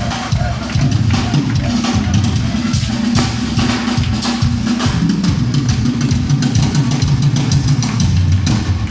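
Live metal drum solo on a full drum kit: fast, dense bass drum and tom strikes with snare and cymbal hits, very loud.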